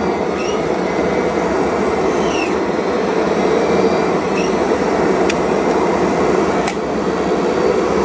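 Kirby upright vacuum cleaner running steadily, with its brush-roll belt just fitted. Two light clicks come a little past the middle.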